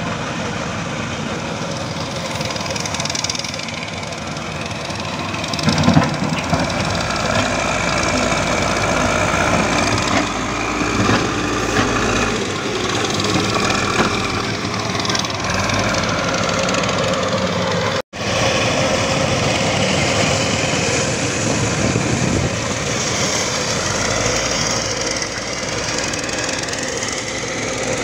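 Caterpillar 424B backhoe loader's diesel engine running steadily under load as the front bucket pushes red soil and rock, with a louder knock about six seconds in. The sound drops out for an instant about two-thirds of the way through.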